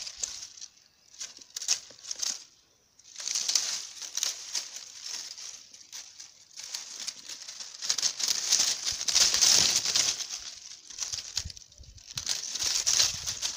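Dry dead leaves and brittle twigs rustling and crackling as a hand pushes through a tangle of dead brush. It comes and goes in uneven spells, loudest about eight to ten seconds in.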